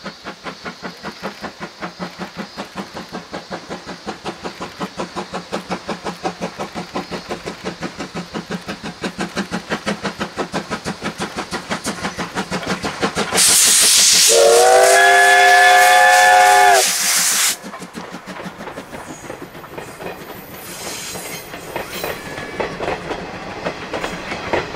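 JNR Class C12 steam tank locomotive working hard: a quick, even exhaust chuff that grows louder as it approaches, then a long blast on its steam whistle wrapped in a rush of steam, lasting about three seconds. After the whistle the coaches roll past with wheels clattering over the rail joints.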